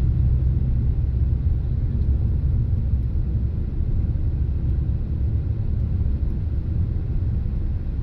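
MG HS car being driven at a steady speed: a steady low rumble of engine and road noise.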